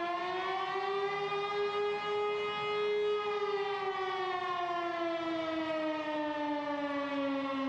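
Air-raid siren wailing: its pitch rises over the first couple of seconds, then sinks slowly.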